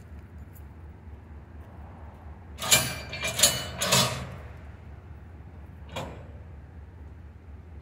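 Freight cars coupling: a cluster of heavy metallic bangs and clanks with a ringing tone about three to four seconds in, then one lighter bang about six seconds in, over a steady low hum.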